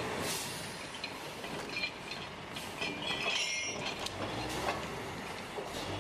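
Crawler-mounted lattice-boom crane rigged as a cable logging yarder, working with its machinery running steadily. A few sharp metallic knocks come through, and a high squeal about halfway through.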